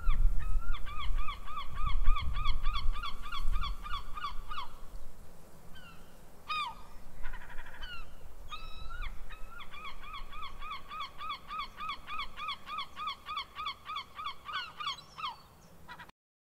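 A bird calling in long runs of rapid, harsh repeated notes, about four or five a second, in two bouts with a pause between them. A low rumble sits under the first bout.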